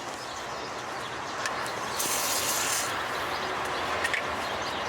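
A short hiss of WD-40 penetrating oil sprayed from an aerosol can, about two seconds in, onto old exhaust bolts that are seized, with light rubbing and clicks of tools and parts being handled.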